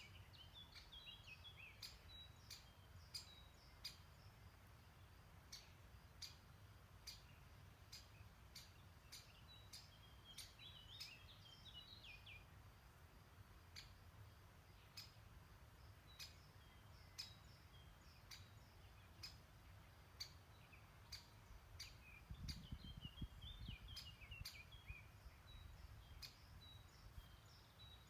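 Faint songbird singing three short warbling phrases that fall in pitch, near the start, midway and near the end, over a low steady rumble that swells briefly about two-thirds of the way in. Frequent sharp ticks run throughout.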